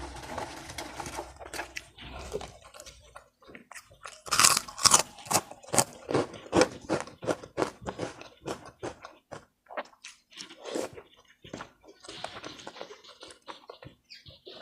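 Close-miked eating sounds of a person chewing and biting food, loudest in a run of crunchy bites about four seconds in, then chewing strokes at about two a second.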